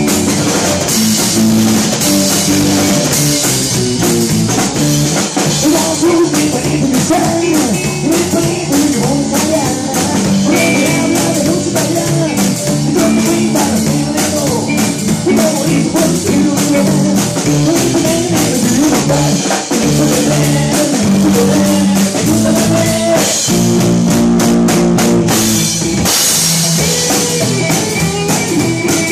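Live rock band playing an instrumental passage: guitar over a drum kit with steady cymbal hits.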